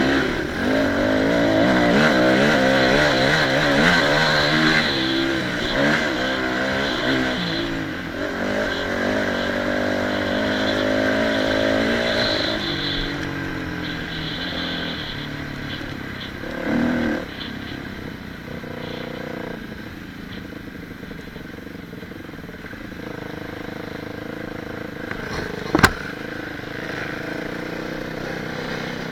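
Dirt bike engine running on a rough track, its pitch rising and falling with the throttle for about the first twelve seconds, then settling to a lower, steadier run. A single sharp knock near the end.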